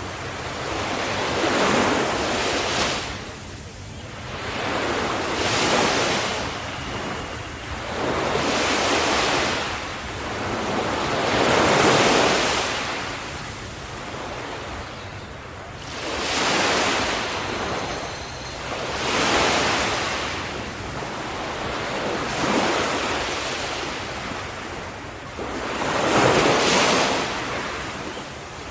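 Ocean waves washing onto the shore, each surge of surf swelling and fading in a steady rhythm about every three seconds.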